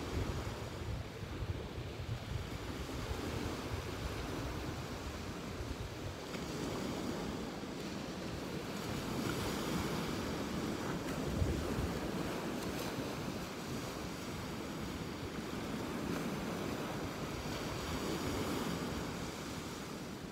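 Ocean surf washing onto a beach, with wind buffeting the microphone in a low rumble. The waves swell louder about halfway through and again near the end.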